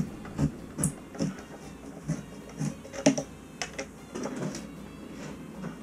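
Hand screwdriver driving a screw down through a plastic toilet flange into the floor: a run of irregular clicks and light knocks, about two a second, as the screw is turned.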